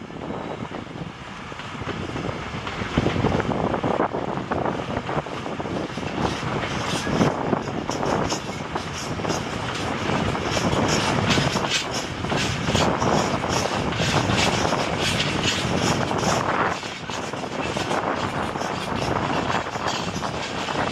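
Freight train hauled by a Class 66 diesel locomotive passing close by with a rake of empty open box wagons. The engine noise swells about three seconds in, then the wagons give a continuous rumble with rapid clattering of wheels over the rail joints.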